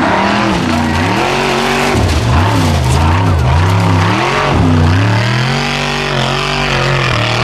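Formula Offroad buggy's engine revving hard under load on a steep dirt climb. The pitch rises and falls several times as the throttle is worked, then holds high for the last couple of seconds.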